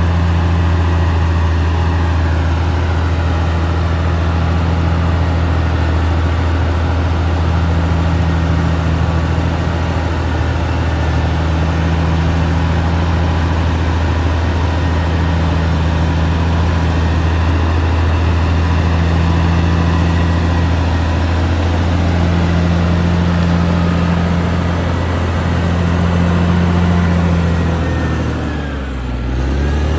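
Caterpillar D6R XL bulldozer's diesel engine running steadily at working revs, a loud low drone. Near the end the engine note drops briefly, then climbs back.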